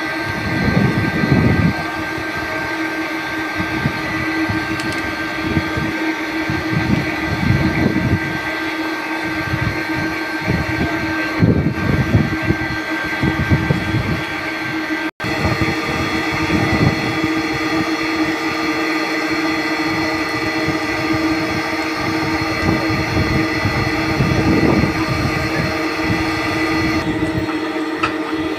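Motor-driven plate bending rolls running, rolling a steel plate into a cylindrical shell: a steady machine hum with several fixed tones, under irregular low rumbles as the plate moves through the rolls.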